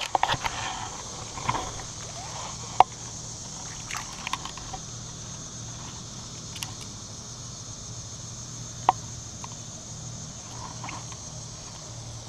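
Rustling of tall grass and handling noise at a pond's edge, over a steady faint background hum and hiss, with two sharp clicks, one about three seconds in and another about nine seconds in.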